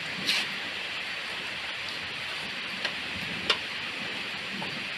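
Steady rain falling, an even hiss, with a few sharp ticks, the loudest about three and a half seconds in.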